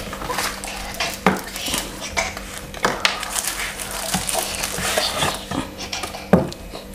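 Thin plastic packaging bag crinkling and rustling as it is handled with a cardboard box insert, with many small crackles and clicks and a sharper knock about six seconds in.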